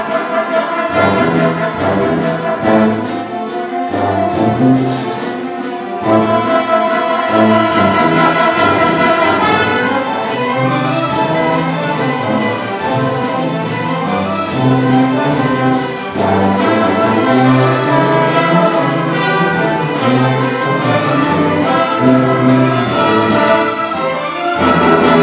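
Student orchestra playing: violins and cellos with brass, moving through a busy run of notes, a little louder from about six seconds in.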